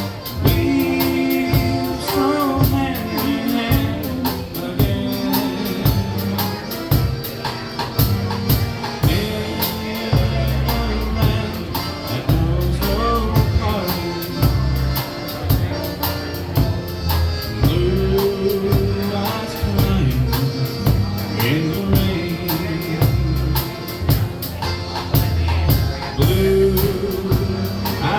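Live band playing a slow country ballad, with sung vocals over a steady beat.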